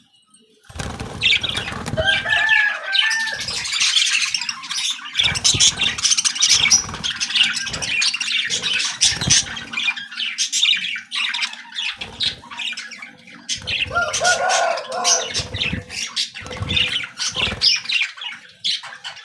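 A colony of many birds chirping and squawking all at once, with wings flapping among them.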